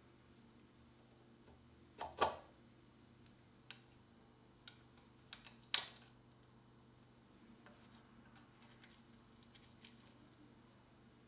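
Light metallic clicks and taps of a road bike caliper brake being handled and fitted to the carbon fork crown, with two louder knocks about two and six seconds in.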